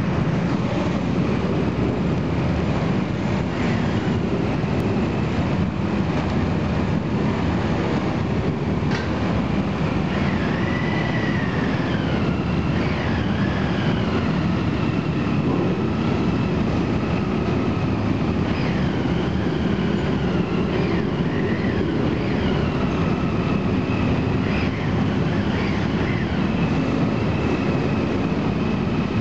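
Loud, steady rumble of engines on a ferry's vehicle deck during disembarkation, with high squeals that slide up and down now and then from about a third of the way in.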